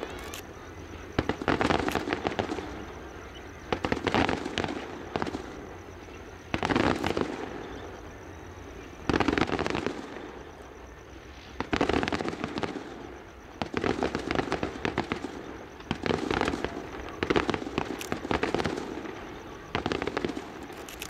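Aerial firework shells bursting in a steady series, a sharp bang every one to three seconds, each followed by a short crackling tail as it fades.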